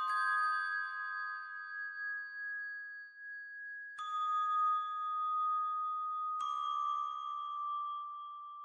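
Bell-like chime tones, each struck as a cluster of clear pitches that rings on slowly. New chords are struck about four seconds in and again about six and a half seconds in.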